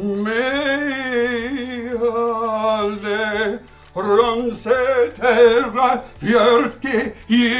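A man singing with a wide vibrato: one long held note for about three and a half seconds, then, after a short break, a string of shorter notes moving up and down in pitch.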